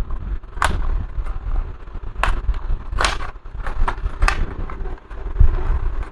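Sharp plastic clicks and knocks from a laptop's casing and parts being handled during disassembly, several of them at irregular intervals, over a low rumble of handling noise.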